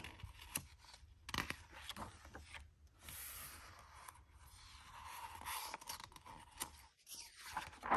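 Faint rustling and scraping of a picture book's paper page being turned and handled, with a few soft clicks.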